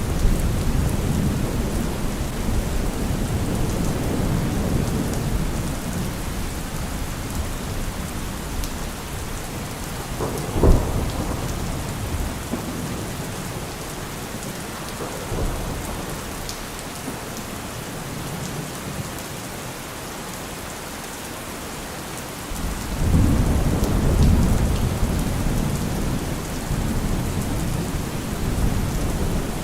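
Steady rain with rolling thunder. A low rumble fades away over the first dozen seconds, with a single sharp crack about ten seconds in, and the rumble swells up again in the last third.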